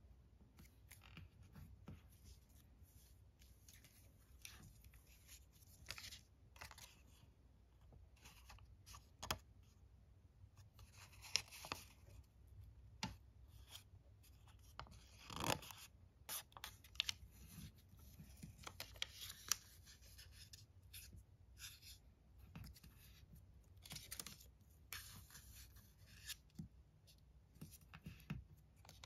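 Small square of origami paper being folded and creased by hand: soft, scattered rustles and crinkles, with a longer, louder swish about halfway through.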